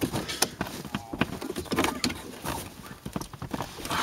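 Fabric-covered C-pillar trim panel of a BMW E46 being tugged against its retaining clips: irregular clicks, knocks and creaks while the clips still hold it in place.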